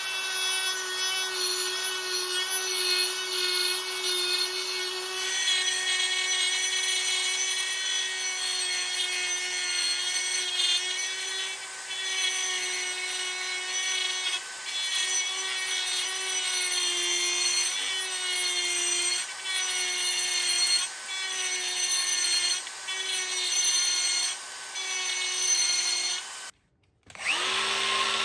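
DeWalt 20-volt brushless cordless die grinder running at speed with a small rotary burr grinding into a metal handwheel's hub. It is a steady high whine whose pitch sags slightly as the bit bites, with several short drops as the tool is eased off the work. Near the end it cuts out for a moment, then grinding starts again louder.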